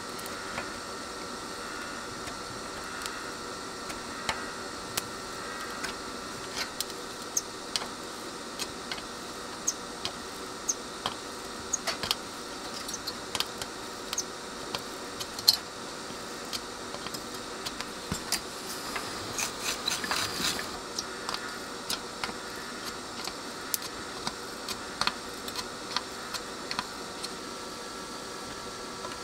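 Soldering iron reflowing dry solder joints on an amplifier circuit board: scattered sharp ticks and crackles as the solder and flux melt, with a denser sizzle about twenty seconds in, over a steady background hiss. The joints being redone are cracked dry joints along the heatsink.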